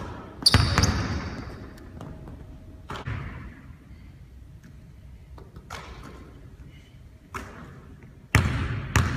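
A basketball thudding on a hardwood gym floor: about six separate impacts a second or more apart, each echoing in the large hall. The loudest, about half a second in, has a short metallic ring.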